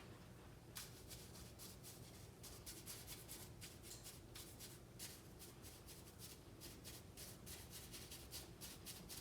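Faint, quick, irregular scrapes and light clicks of hand work, several a second, over a low steady hum.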